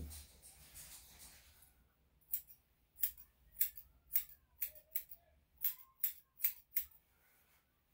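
Grooming scissors snipping a Yorkshire terrier's hair: about a dozen quick, crisp cuts in a row after a short rustle at the start.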